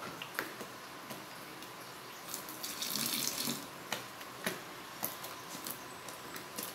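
Long wooden spoon stirring thick, jelly-like liquid soap in a plastic basin: wet sloshing, louder for about a second near the middle, with scattered sharp clicks.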